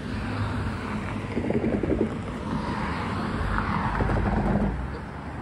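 A car passing on the street, its engine and tyre noise swelling and fading, with wind buffeting the microphone.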